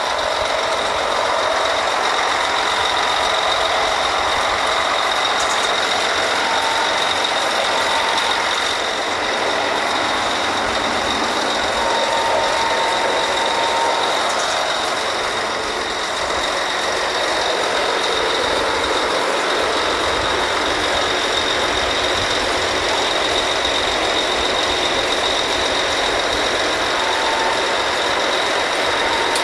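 Oil drilling rig machinery running: a loud, steady mechanical noise with a constant high whine.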